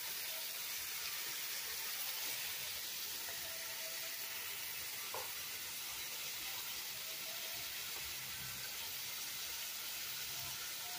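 Steady sizzling hiss from chicken drumsticks in a switched-on electric rice cooker pot.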